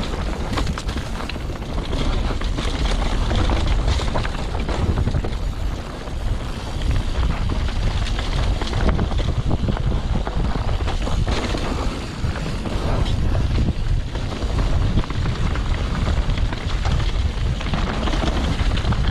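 Wind buffeting an action camera's microphone while a mountain bike runs down a dirt trail, with the tyres rolling on the dirt and the bike rattling and knocking over bumps.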